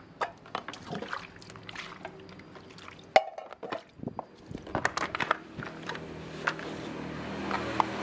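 Wet sponge scrubbing a plastic tray, with water sloshing and the short scrapes and knocks of the tray being handled; one sharp knock about three seconds in.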